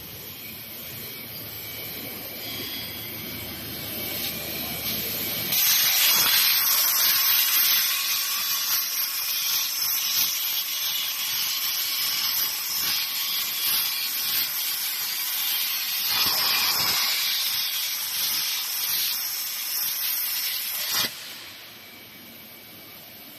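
Industrial cutting machine running with a steady hiss. The hiss builds, gets abruptly louder about five seconds in, then drops off sharply near the end.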